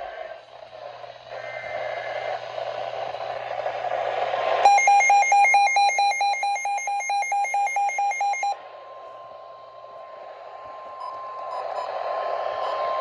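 Emergency alert tones on a weather radio ahead of an extreme wind warning. There are short high tone bursts over radio static, then a loud electronic alarm beeping rapidly back and forth between two pitches for about four seconds. Under and after the beeping, a long steady alert tone runs on to near the end.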